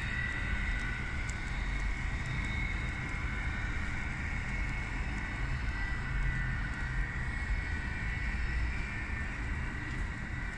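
N scale model locomotive running on a digital sound decoder, with a steady hum and a high whine throughout.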